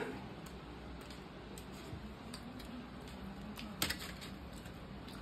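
Sparse faint clicks, then a sharper crackle just before four seconds in, as a hand tears naan lying on crumpled aluminium foil.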